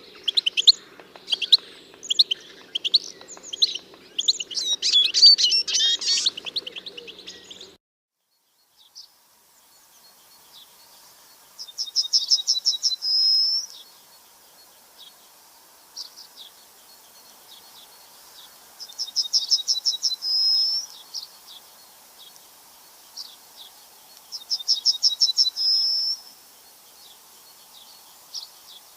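Songbirds chirping busily in quick overlapping calls, cutting off about eight seconds in. After a short silence, a single bird repeats one song three times, each a rapid trill of about a second and a half ending on a higher note, with scattered single chirps between.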